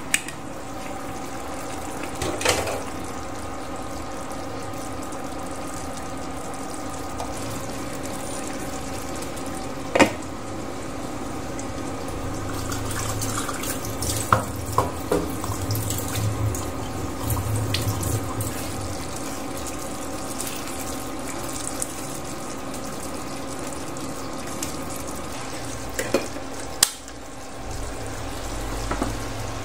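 Stew simmering in a covered pan on a portable induction cooker: a steady bubbling hiss over a constant hum. A few sharp clinks sound through it, and there is livelier bubbling and crackling midway.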